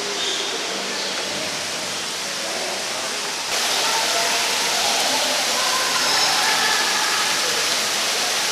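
Steady rush of falling water, which gets abruptly louder about three and a half seconds in.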